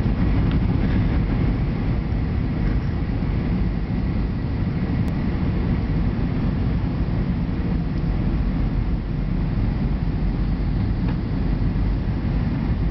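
Cabin noise inside an Airbus A320 on approach to land: the steady rumble of engines and airflow, heaviest in the low range, with a faint steady whine above it.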